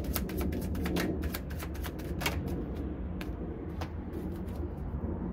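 A deck of oracle cards being shuffled by hand: a quick run of crisp card snaps and flicks that thins out about halfway through, over a steady low background rumble.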